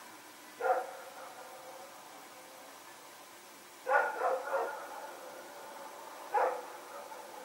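A dog barking: a single bark about half a second in, a quick run of about three barks around four seconds in, and one more bark near the end, over a faint steady hum.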